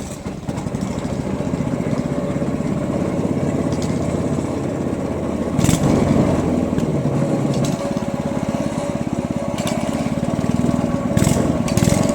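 Small engine of a katinting outrigger boat running steadily at speed, loud and close. It rises in loudness right at the start, with a sharp knock about six seconds in.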